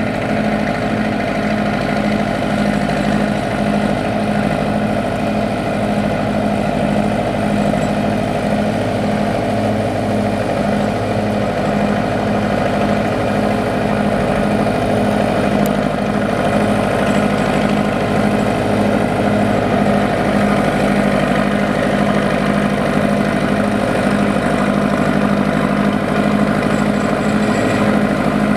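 Belarus tractor's diesel engine running steadily at low speed while pulling a loaded rice trailer through mud, growing slightly louder as it approaches.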